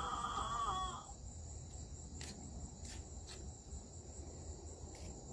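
Crickets chirping steadily in a high, even drone. A held, buzzing tone ends about a second in, and a few faint sharp clicks follow.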